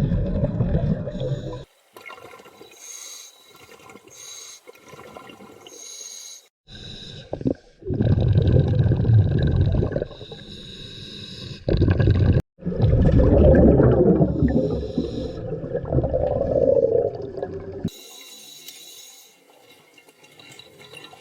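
Scuba diver breathing through a regulator underwater: a quieter hiss on each inhale, then a loud rush of bubbles on each exhale, the exhales lasting several seconds.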